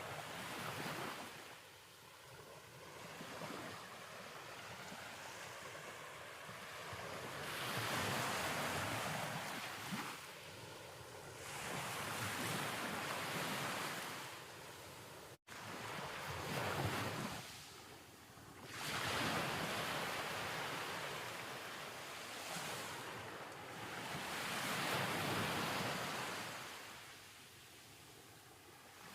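Ocean waves washing in and out in slow swells a few seconds apart, with a momentary dropout about halfway through.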